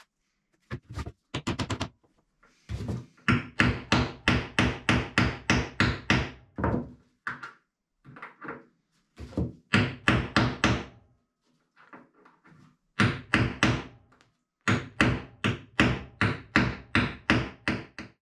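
A hammer striking a hand punch tool to fit stainless steel grommets into sail cover cloth, in quick runs of about three to four blows a second with short pauses between them.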